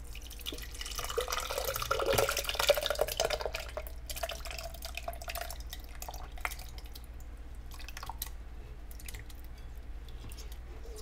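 Hot cooked butternut squash and cooking water pouring and plopping from a pot into a Vitamix blender jar, heaviest about two to three seconds in. After that come scattered clicks and scrapes as the last of it is worked out of the pot.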